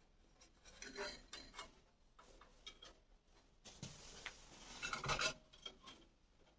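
Faint metallic clinks and rubbing as a band saw blade is fitted onto the wheels of a Makita LB1200F band saw. The sounds come in scattered short bursts, loudest a little after five seconds in.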